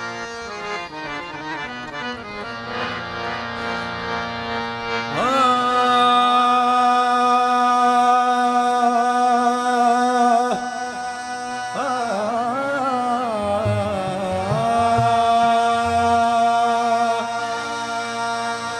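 Qawwali music: a harmonium plays an opening prelude, then about five seconds in a long wordless held vocal note rises over it and wavers around the middle. Tabla strokes join in past the halfway point.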